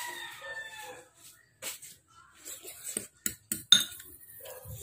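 A rooster crowing in the background during the first second, the call trailing off. About three seconds in, a metal spoon clinks several times against a ceramic bowl as she eats; these sharp clinks are the loudest sounds.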